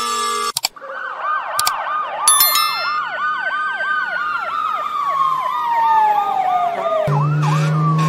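US fire truck siren: a fast yelp repeating about three times a second over a slower wail that rises and then winds down, with a brief horn blast about two seconds in. A different siren's steady tones cut off about half a second in, and near the end another siren takes over, gliding down and up over a low engine drone.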